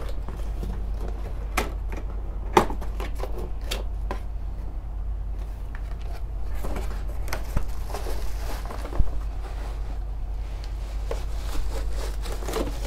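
Cardboard retail box being opened and handled by hand: scattered rustles, scrapes and sharp clicks of the flaps and lid, two of them louder, about two and a half seconds in and about nine seconds in.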